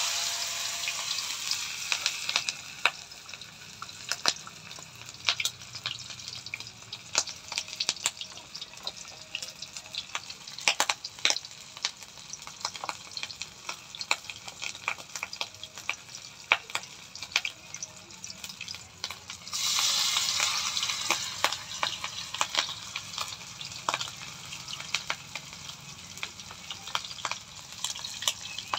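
Battered chicken feet deep-frying in a wok of hot oil: a steady sizzle with frequent sharp pops. The sizzle surges loudly at the start and again about twenty seconds in.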